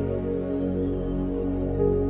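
Background music of slow, sustained held chords.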